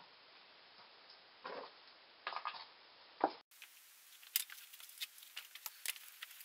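A hiker scrambling up through granite boulders: faint scuffs of boots and hands on rock with a few sharp knocks, then a denser run of quick clicks and scrapes in the second half.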